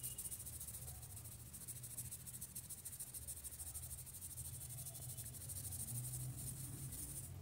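Faint, steady high-pitched insect trill over a low hum; it cuts off suddenly near the end.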